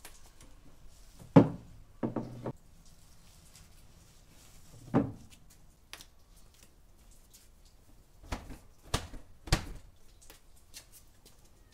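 Knocks and thuds of kitchen things being set down and handled on a table: seven separate hits, the loudest about a second and a half in, a pair just after, one near five seconds and three more between eight and ten seconds.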